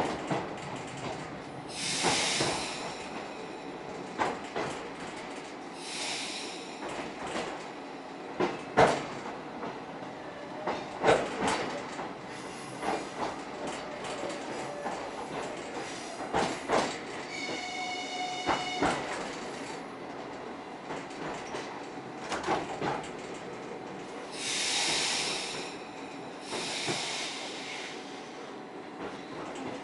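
Suburban electric train running on the rails, with repeated sharp knocks and clatter from the wheels, several bursts of hiss, and a brief high-pitched squeal about eighteen seconds in.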